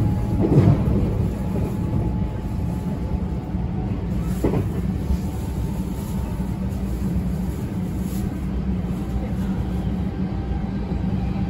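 Running sound of a JR West 321 series electric multiple unit with Mitsubishi IGBT-VVVF traction equipment, heard inside the passenger car: a steady rumble of wheels on rail and traction motors while the train runs between stations.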